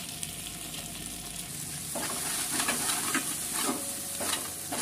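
Onions, green chillies and ginger paste sizzling in oil in a large metal pot while a metal spatula stirs them. From about two seconds in the spatula scrapes the pot in a run of strokes, a little under two a second.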